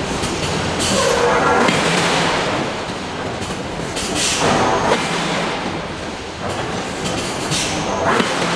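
Steady heavy machinery noise of a steel forging shop, with a louder hissing, squealing surge about every three and a half seconds.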